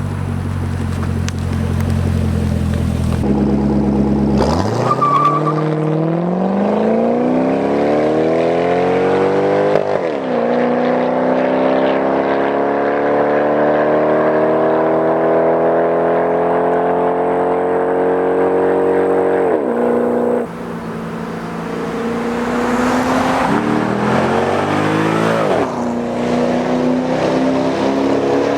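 C6 Corvette V8 through a straight-pipe exhaust with the mufflers deleted, running at a low rumble and then accelerating hard. The engine note climbs, drops at a shift about ten seconds in, climbs slowly again for about nine seconds, backs off around twenty seconds in, then climbs once more.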